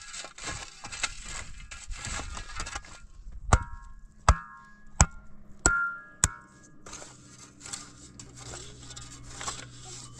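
Metal shovel digging stony soil: gritty scraping and chopping, with a run of five sharp, ringing strikes in the middle, about two-thirds of a second apart, as the blade hits rock.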